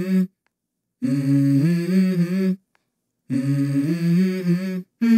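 Background music: a hummed vocal melody of low held notes in harmony, in short phrases that cut off abruptly into silent gaps.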